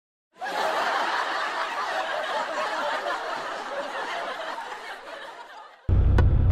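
Canned crowd laughter that starts after a moment of silence and fades away over about five seconds.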